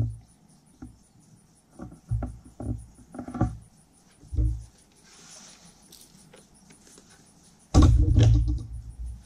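Handling noises in a jet ski's engine bay: scattered knocks, clunks and rustling as hoses and parts are moved by hand, with a louder cluster of knocks near the end as a plastic spray bottle is picked up.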